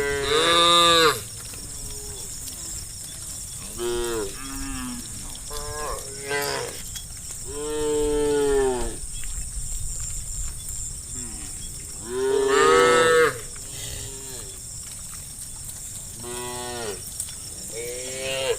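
Cows mooing, one drawn-out call after another, about eight calls in all. The loudest calls come right at the start and about twelve seconds in.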